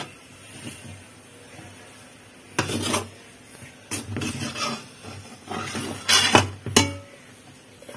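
A metal ladle scraping and knocking against a metal pan as it stirs a thick, cooked rice-flour mixture. The strokes are irregular, starting about two and a half seconds in.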